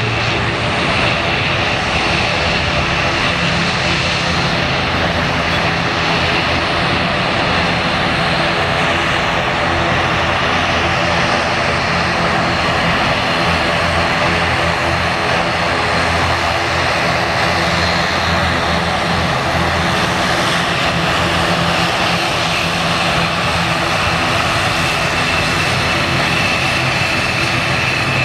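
An ATR 72-600's two Pratt & Whitney PW127 turboprop engines running steadily with propellers turning: an even drone with a high whine on top.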